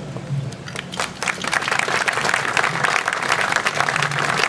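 Crowd applauding: many hands clapping, building up about a second in.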